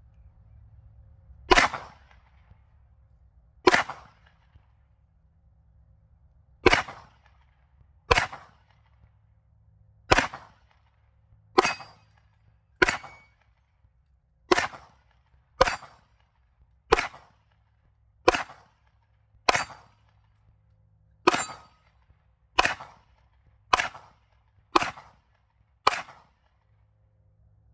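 Seventeen single shots from a Glock pistol, fired one at a time about one to two seconds apart, each a sharp crack with a short tail after it.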